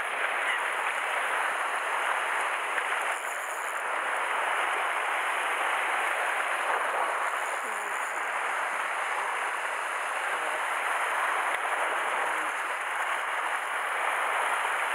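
Sea waves washing and foaming over rocks at the water's edge: a steady rushing wash with no break.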